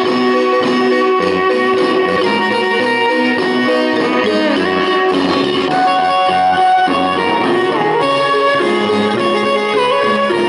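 Marimba band playing a rhythmic tune: many short struck notes over a repeating low bass line.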